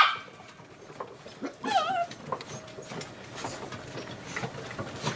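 Australian Terrier puppies whimpering and yipping: a loud, rising yelp right at the start, then a short wavering whine about two seconds in, with small scattered noises between.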